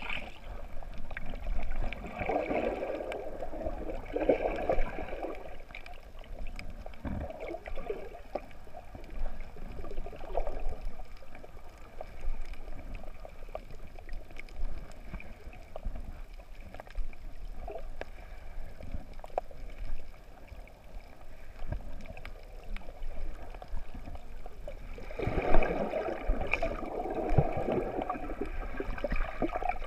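Muffled underwater sound of water moving around the camera: irregular gurgling and sloshing, louder for a few seconds near the start and again near the end.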